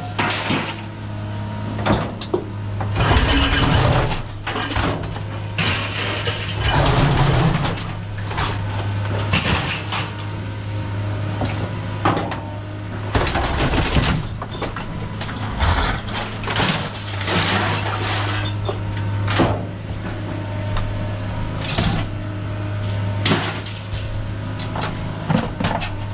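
A vehicle engine running at a steady idle hum, with repeated clanks, knocks and rattles every second or two over it.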